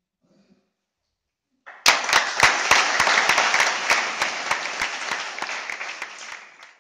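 Audience applauding with many hands clapping. It starts suddenly about two seconds in, slowly fades, and is cut off near the end.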